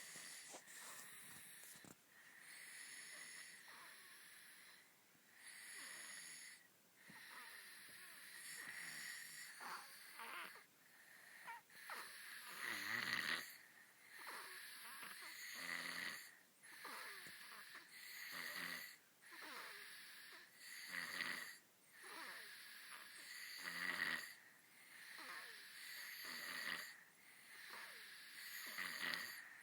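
Two 17-month-old identical twin toddlers snoring mildly in their sleep, one soft snoring breath about every two and a half seconds.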